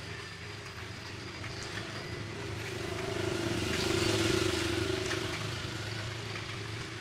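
A motor vehicle's engine passing by, over a steady low hum: it grows louder to a peak about four seconds in, then fades.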